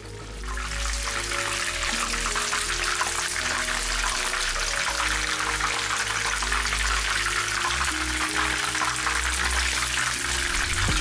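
Chicken wings deep-frying in a pan of hot oil: a dense, steady sizzling crackle that builds up over the first second, over background music.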